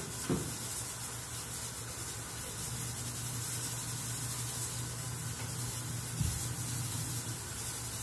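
Steady low hum and hiss, with two light knocks, one just after the start and one about six seconds in, as a plastic LED light bar is handled and pressed against the sidecar's sheet-metal body.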